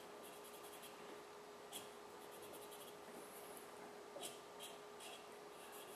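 Brown felt-tip marker faintly scratching and dabbing in scattered short strokes over an orange foam fly body, colouring it brown.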